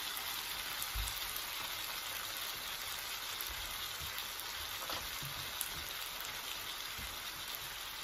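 Sliced bitter melon and onions sautéing in oil in a frying pan, left to cook without stirring: a steady sizzle.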